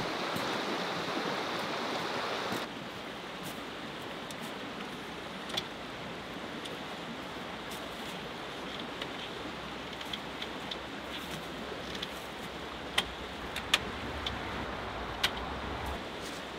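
Steady rush of a shallow stream, louder for the first two and a half seconds and then dropping abruptly to a quieter level. Scattered light clicks and a few sharper knocks near the end come from the frame of a vehicle's side awning being folded up.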